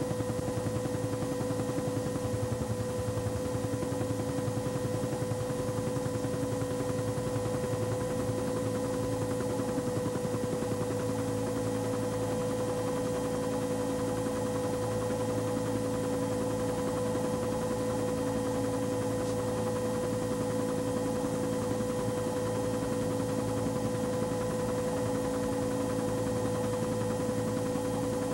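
Steady aircraft cabin noise: a constant low drone with a high, even whine and hiss.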